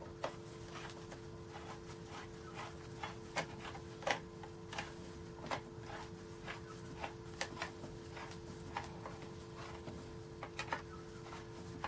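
Irregular light metallic clicks and taps as nuts are hand-started on the clutch spring studs of an IZh Planeta 5 motorcycle engine, over a steady two-tone hum.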